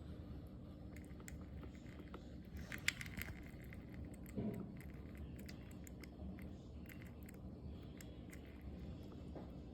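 Faint room tone with a low steady hum, scattered light clicks, and a soft knock about four and a half seconds in.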